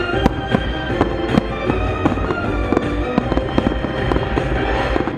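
Aerial firework shells bursting in rapid, irregular succession, many sharp bangs over loud music.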